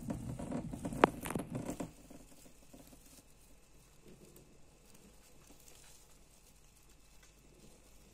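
Djungarian hamsters scurrying through wood-shaving bedding, a dense crackly rustle with a sharp click about a second in, then only faint rustling for the rest.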